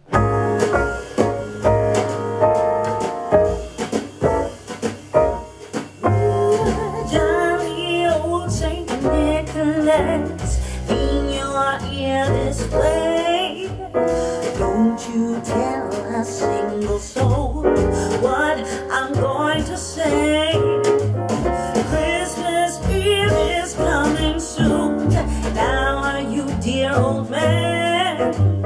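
A song with a steady bass line, played aloud through a Tronsmart Bang 60 W Bluetooth party speaker and picked up by two external microphones without processing. A singing voice comes in about seven seconds in.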